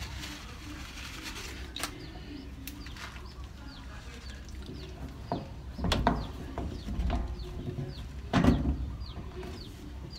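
A bird chirping over and over, a quick, even series of short falling chirps. Twice, about six and eight and a half seconds in, louder knocks and scrapes come from a PVC water pipe being handled and pushed into its fitting.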